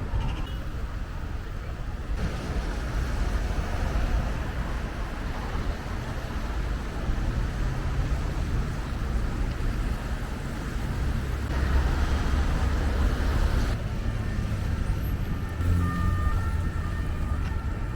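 Steady low rumble of road vehicles in city traffic, with a noisy haze and a few faint background voices.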